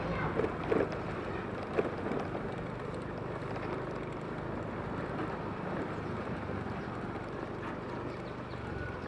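Riding noise on a Yamaha Mio i 125 scooter: the engine running steadily under way, with wind buffeting the microphone and a couple of short knocks about a second in.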